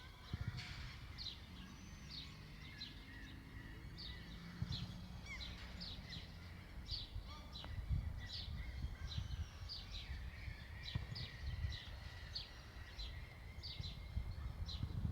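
Small birds chirping: short, high chirps repeated a few times a second, over a steady low rumble.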